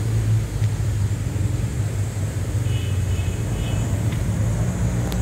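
Steady low rumble of city traffic, with a few faint high chirps about three seconds in.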